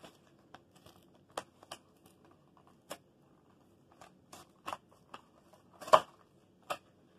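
Cardboard box of a Lego set being handled and opened by hand: scattered short crinkles and clicks of card and packaging, the loudest about six seconds in.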